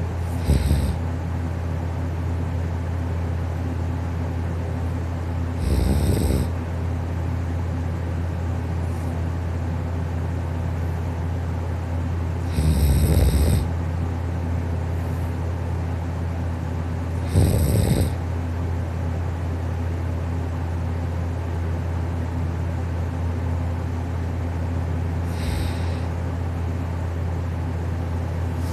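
A sleeping person snoring soft and gentle, five snores spaced several seconds apart, the last one weaker, over a steady low hum.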